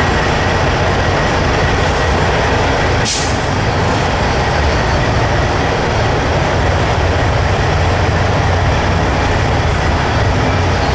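Semi truck's diesel engine running steadily at low revs while the tractor-trailer reverses, with one short, sharp hiss of air from the brakes about three seconds in.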